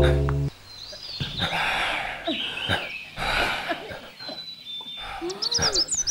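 A drum-led music cue cuts off about half a second in, leaving birds calling: short chirps and whistling calls, some high and some lower, with a few sharp knocks in between.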